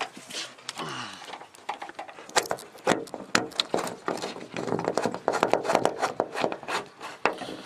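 Irregular clicks, taps and rattles of metal and plastic parts as a replacement door handle and lock barrel are worked into a Toyota Previa's front door, busiest in the second half.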